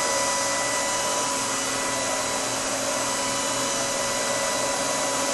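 A small motor running steadily: an even hiss with a thin constant whine.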